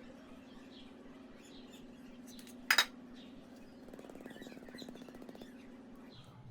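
A single sharp clink of a kitchen utensil about three seconds in, over a steady low hum, with faint bird chirps throughout.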